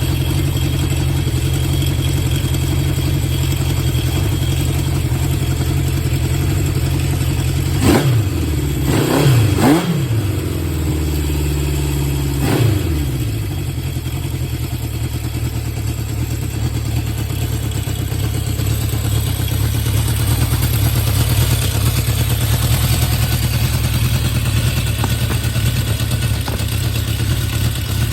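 Honda CB750 Four K3's air-cooled inline-four idling through baffle-modified HM341 mufflers. It is blipped up and back down a few times about a third of the way in, then settles back to a steady idle. Its carburettor float levels have been reset, #3 having been set abnormally high, to cure the 'sneeze' through the carburettors.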